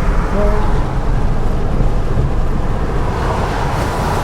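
Car driving along: steady engine and road rumble with wind noise, and a brighter hiss swelling near the end.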